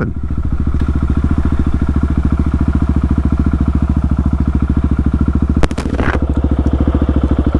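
Husqvarna 701's single-cylinder four-stroke engine idling steadily with an even, rapid pulse. There are two short clicks about six seconds in.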